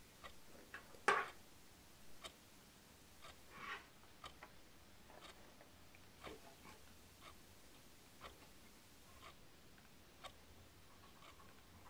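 Clock ticking about once a second in a quiet room, with soft scratches of writing on paper. A sharper click stands out about a second in.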